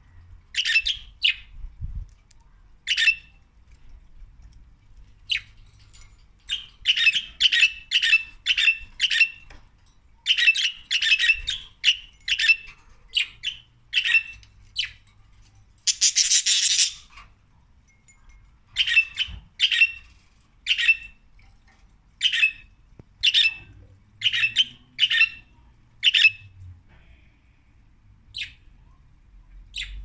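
Pet budgerigars chirping: runs of short, sharp calls, several a second, broken by pauses, with one longer harsh screech about sixteen seconds in.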